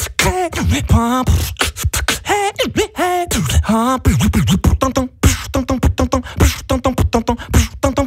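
Beatboxer performing into a studio microphone: sharp mouth-made drum hits and clicks under sung notes that wobble and jump in pitch, imitating an auto-tuned voice. From about five seconds in it turns to a fast, even run of clicks alternating with short pitched notes.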